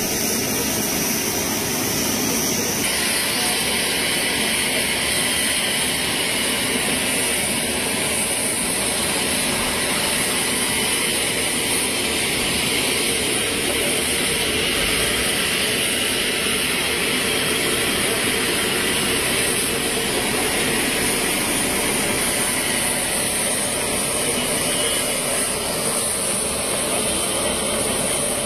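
Steady high-pitched whine over a rushing roar from a military transport jet's engines running on the apron, with a slight change in tone about three seconds in.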